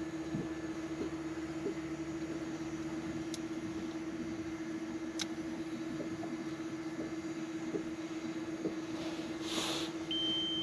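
Quadcopter drone hovering overhead, its propellers giving a steady hum at one pitch. A brief whoosh comes shortly before the end, then an electronic beep starts: the drone's low-battery warning.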